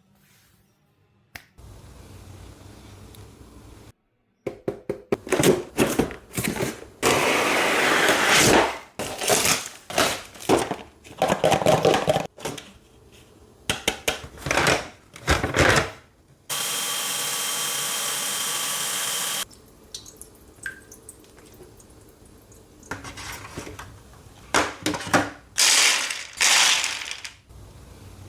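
Handling and assembly noises from an elevated pet bowl stand being unpacked and put together: rustling and irregular clicks and knocks, with a steady rushing sound lasting about three seconds past the middle.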